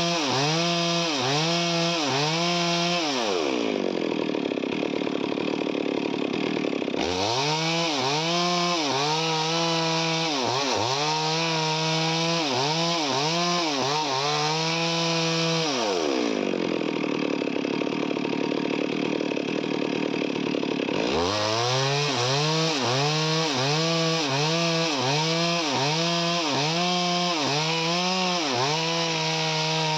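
Chainsaw cutting through wood, its engine pitch rising and dipping about one and a half times a second as the chain bites. Twice, about 3 s and 16 s in, the engine bogs down to a low pitch under load for several seconds before climbing back up.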